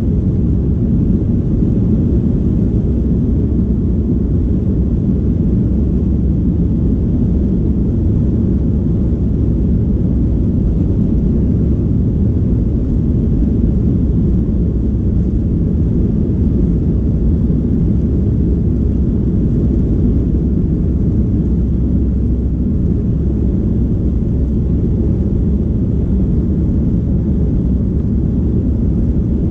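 Steady low rumble inside the cabin of a Boeing 737 rolling on the runway: its jet engines running, with the wheels rolling on the pavement.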